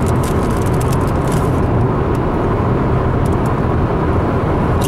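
Steady road and engine noise inside a moving car's cabin at speed, a continuous low rumble, with a few faint crackles over the top.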